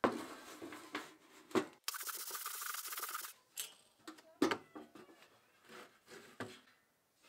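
Old painted steel tool box handled on a wooden workbench: it lands with a clatter and rubs, then scrapes steadily across the bench for about a second and a half. Knocks and metal clanks follow, the loudest about midway, as its lid is opened.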